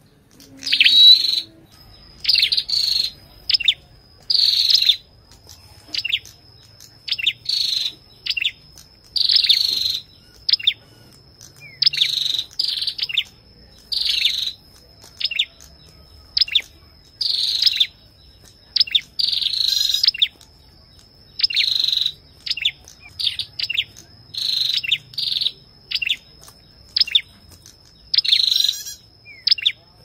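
Ashy tailorbird singing: short bursts of sharp, high chipping notes, one or two bursts a second with brief pauses between runs. A faint, thin, steady high tone runs behind the song.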